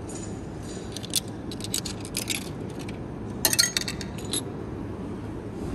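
Coins clinking and rattling in a snack vending machine's coin slot and return cup: a string of short metallic clicks, loudest in a cluster about three and a half seconds in. The machine is rejecting a 2-euro coin.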